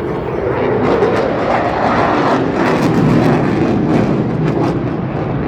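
Eurofighter Typhoon fighter jet's twin EJ200 turbofan engines, loud, with a crackling edge, getting slightly louder about a second in as the jet flies a display pass.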